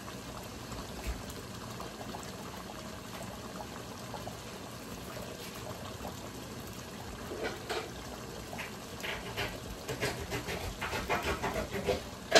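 Pot of okra stew cooking on a stovetop burner set to highest: a steady hiss, then from about seven seconds in a growing run of short irregular pops and clicks.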